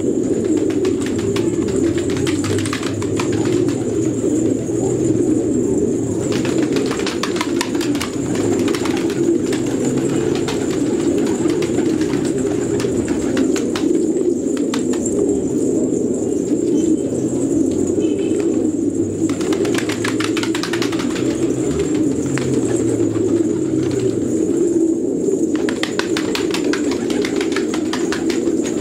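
A flock of fancy pigeons cooing continuously as a dense, overlapping low chorus, with short bouts of wing flapping and sharp clicks every few seconds.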